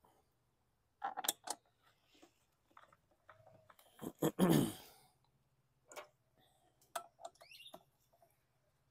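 Irregular clicks and metal taps of hand tools and small sheet metal screws being handled and started while a recoil starter is fastened to a lawn mower. A louder rushing sound that falls in pitch comes about four and a half seconds in.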